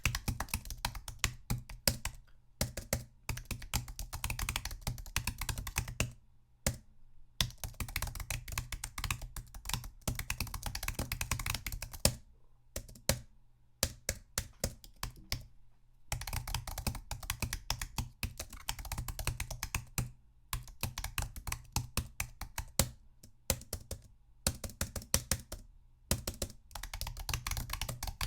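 Typing on a MacBook laptop keyboard: quick, uneven runs of light key clicks, broken by short pauses every few seconds.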